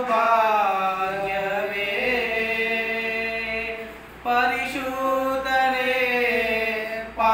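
Two men singing a Kannada hymn a cappella, with no instruments, in long held notes. Two drawn-out phrases, with a short breath between them about four seconds in.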